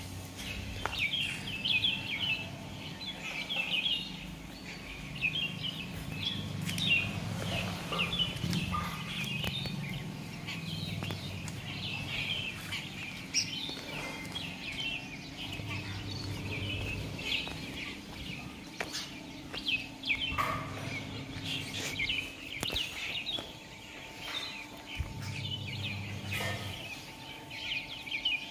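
Many small birds chirping continuously, with a faint low hum coming and going underneath.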